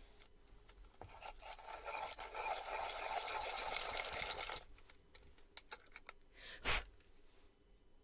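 A coloured pencil being sharpened in an all-steel pencil sharpener: a steady grinding for about three and a half seconds that stops suddenly, followed by a few light clicks and a single knock.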